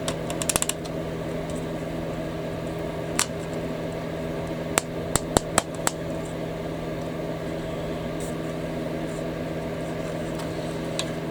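A steady low electrical hum, with small sharp clicks of plastic model-kit parts and tools being handled: a quick rattle of clicks at the start, then single clicks scattered through the middle and one near the end.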